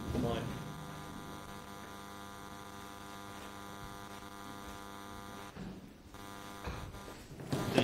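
Steady electrical mains hum on the sound system, a buzz made of many even overtones. It cuts off about five and a half seconds in.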